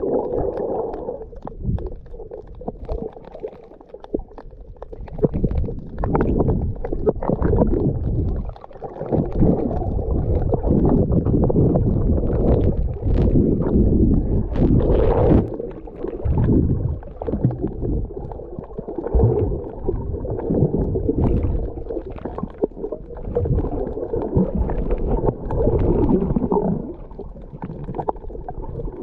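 Muffled underwater rumbling and gurgling of water moving over a camera held under the surface, swelling and fading unevenly with brief splashy surges.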